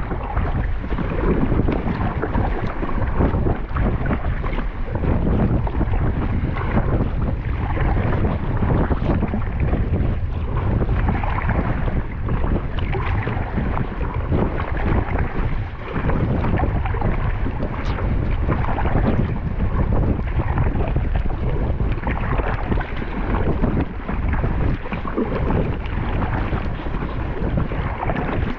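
Strong wind blowing on the microphone, a loud, low, gusting rumble, over water splashing against an inflatable kayak.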